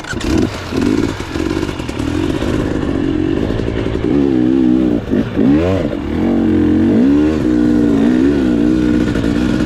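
Dirt bike engine running and revving as the bike is ridden down a steep slope, its pitch rising and falling several times, with the sharpest revs around the middle.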